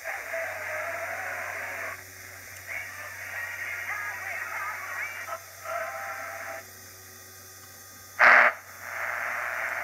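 AM broadcast stations heard through a 1942 ARC-5 command set receiver's loudspeaker as it is tuned across the band: snatches of distant voices and programme audio change every second or two, with hiss between stations and a short loud burst about eight seconds in, over a low steady hum.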